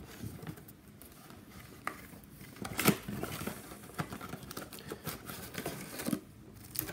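Cardboard retail blaster box being opened by hand: scattered rustling and light clicks, with a sharper snap about three seconds in.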